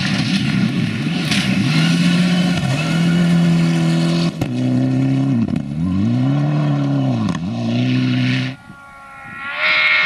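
Mitsubishi Lancer Evolution rally car's turbocharged engine at high revs on loose gravel, its pitch climbing and dropping with gear changes and dipping in deep swoops as the driver lifts off and gets back on the throttle, with a gravel hiss underneath. The sound drops away suddenly, then another rally car's engine swells up as it approaches near the end.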